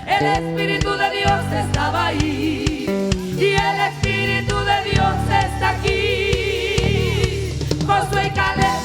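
Church choir singing a Spanish-language gospel song with a live band: voices with vibrato over bass guitar and drums. It is the musician's in-ear monitor mix, so the instruments sound close and dry.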